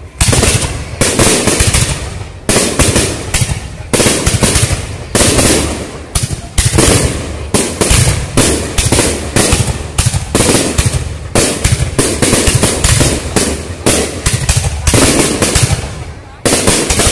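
Aerial fireworks display: a steady barrage of sharp bangs from shells bursting overhead, several a second, with brief lulls between volleys.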